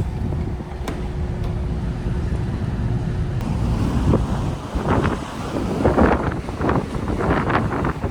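Steady low rumble of a long-distance ferry under way, with irregular gusts of wind rushing across the microphone from about halfway through.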